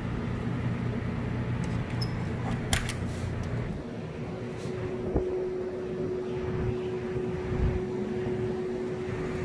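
Sandstorm wind rushing steadily past an open window, with a sharp knock about two and a half seconds in and a thud about five seconds in. A steady whistle joins about halfway through.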